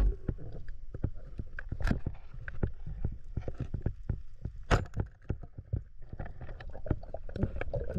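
Underwater sound picked up through an action camera's housing: a low rumble with many irregular sharp clicks and knocks, two of them louder, about two and five seconds in.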